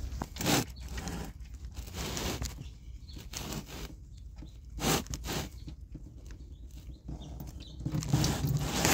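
Scattered scrapes and knocks of a hand ratchet working the oil pan drain plug loose.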